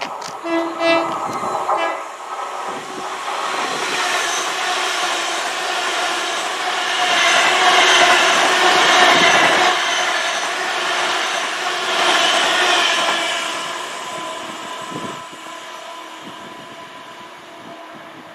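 Great Western Railway Hitachi Intercity Express Train sounding its horn for about two seconds as it approaches, then passing the platform: a rush of wheels and air that builds, is loudest about eight seconds in, and fades away.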